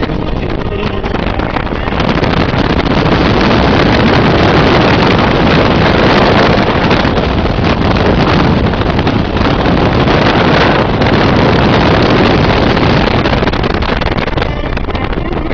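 Wind rushing through the open cabin of a Ford Mustang convertible at speed and buffeting the microphone, over tyre and road noise; it gets louder about two seconds in.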